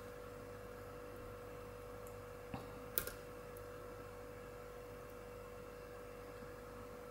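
Lock pick working the pins of a brass six-pin euro lock cylinder under tension: two small sharp clicks about two and a half and three seconds in, over a steady faint hum.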